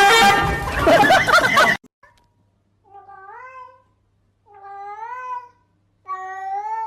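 A loud, harsh cat cry that cuts off suddenly, then a cat meowing three times, each meow about a second long and rising then falling in pitch.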